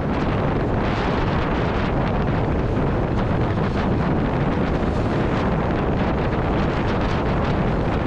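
Wind rushing over the microphone of a motorcycle cruising at about 75 km/h on a wet road, steady throughout, with the Kawasaki Z H2's supercharged engine running underneath.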